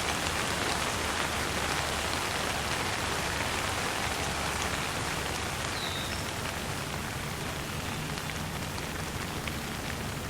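Light rain falling steadily, easing off slightly over time, with a low steady rumble underneath. A brief high chirp sounds once about six seconds in.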